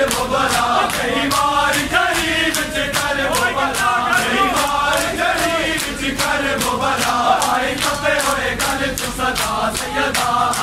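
A group of men chanting a noha in unison, with an even, fast beat of matam: hands striking chests in time with the chant.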